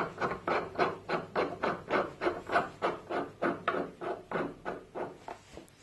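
Rhythmic scraping strokes, about three a second, slowing and fading near the end.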